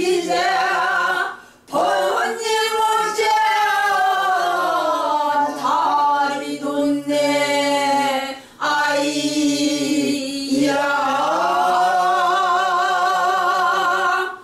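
A woman singing unaccompanied in Korean traditional Namdo folk-song style, in long held phrases with short breaths between. The notes slide downward in the middle, and the last held note has a wide, deep vibrato.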